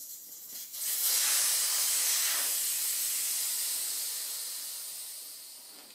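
Air hissing out of a dirt bike tire's inner tube through the valve stem with its valve core removed. The high hiss starts about a second in and slowly fades as the tire deflates.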